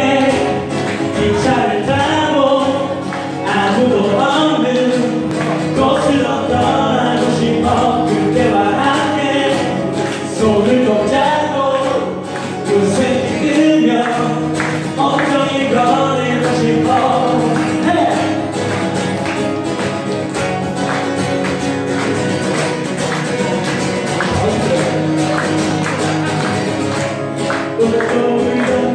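Live acoustic guitar song with a singer's voice, the audience clapping along to the beat.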